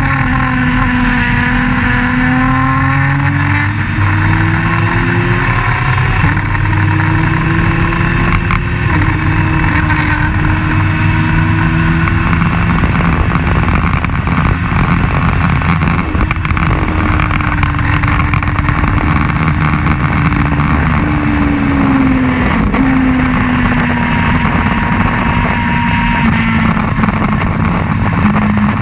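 Onboard sound of an open-wheel race car's engine running hard at racing speed, its pitch climbing slowly and dropping suddenly at gear changes and falling for a stretch past the middle, over a steady rush of wind noise.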